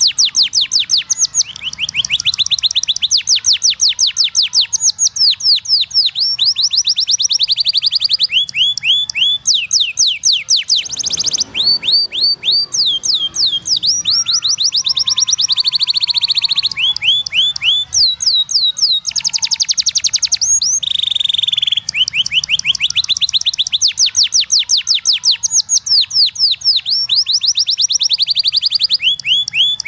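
Domestic canary singing a long song of fast, high trills, each roll a run of quickly repeated sweeping notes, switching to a new roll every second or two with only brief breaks.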